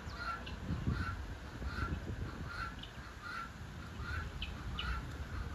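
A bird calling over and over, a short call about every three-quarters of a second, over a low rustling noise.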